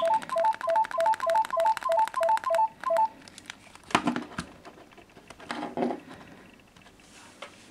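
Mobile phone sounding an electronic alert of short beeps that alternate between a low and a high note, about four a second, for roughly three seconds before stopping. A couple of faint knocks follow later.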